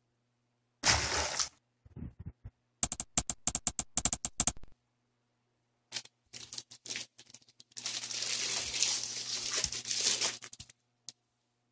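Handling noise of a fabric drawstring dust bag and the plastic-wrapped clutch inside it: a short rustle about a second in, a quick run of crackling clicks, then a longer rustle near the end as the clutch is slid out of the bag.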